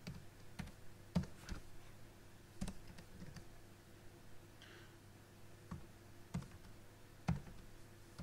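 Computer keyboard keystrokes and mouse clicks: faint, irregularly spaced single clicks as numbers are typed into spreadsheet cells.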